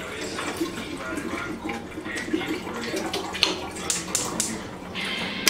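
Water glugging out of an upturned plastic water bottle into a metal stovetop kettle, an uneven bubbling pour that runs on steadily.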